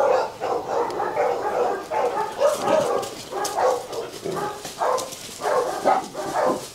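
Rottweiler puppies yipping and barking in play, short barks in quick succession with brief breaks.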